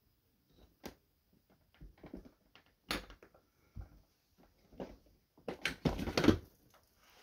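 Handling sounds from a switched-off Shark Navigator upright vacuum: scattered clicks, taps and knocks, with a cluster of louder knocks about three-quarters of the way through.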